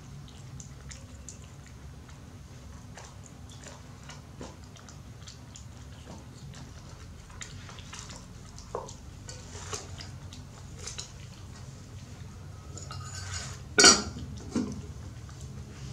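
Light clicks and taps of jackfruit pieces being handled in a plastic fruit bowl, over a steady low hum. Near the end comes one sharp knock, the loudest sound, followed by a smaller one.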